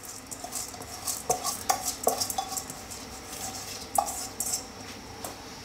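A metal bowl knocking and scraping against the rim of a cooking pot as soaked basmati rice is pushed out of it into the broth: a few short ringing clinks, the loudest about four seconds in.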